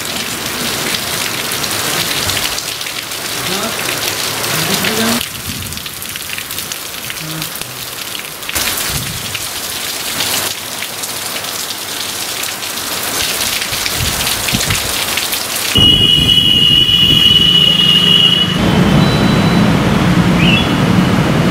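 Rain falling with a steady hiss, heard over a series of shots that change abruptly. About 16 s in it turns louder, with a steady high tone held for a couple of seconds.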